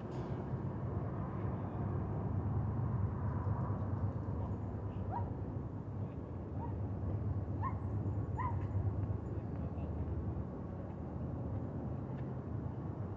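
Steady wind rumble on the microphone, with four short rising animal calls in the middle.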